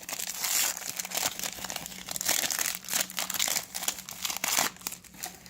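Trading card pack wrappers crinkling as packs are handled and opened, the rustling dying down about four and a half seconds in.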